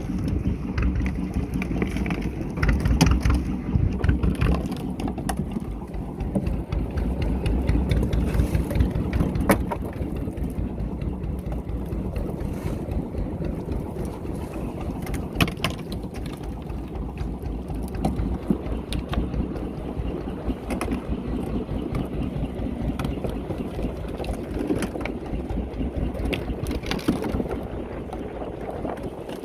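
A small fishing boat's engine running steadily, with a fast, even low pulse and scattered sharp knocks on top.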